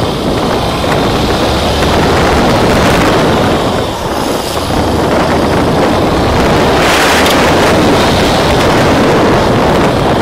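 Wind buffeting the microphone of a camera on a moving motorcycle, over the steady low running of its engine. About seven seconds in, a brief hiss swells and fades.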